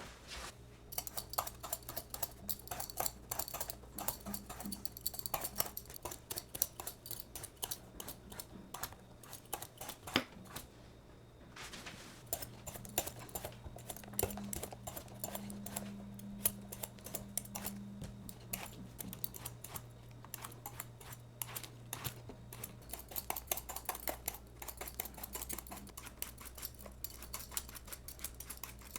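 Kitchen food-preparation sounds: many quick, light, irregular clicks and taps, over a faint low hum.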